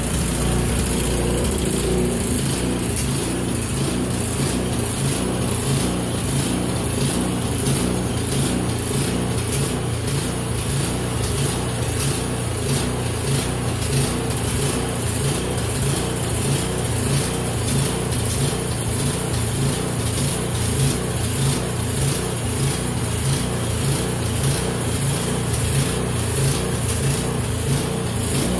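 Remington snowblower's 179cc PowerMore four-stroke engine running steadily. It runs after a carburetor overflow that had flooded the engine with gas, which came out through the muffler.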